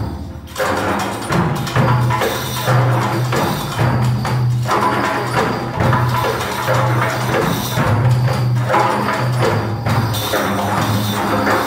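A group of frame drums and darbukas playing a rhythm together, picking up again about half a second in after a brief lull.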